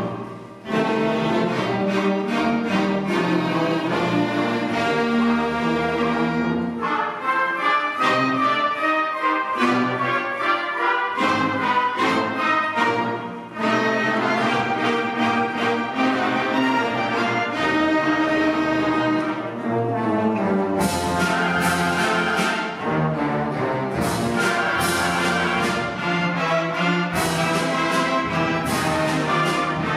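Middle school concert band of woodwinds and brass playing a piece in full sustained chords, with a short break just after the start and another about halfway. From about two-thirds of the way through, sharp accented hits mark the beat.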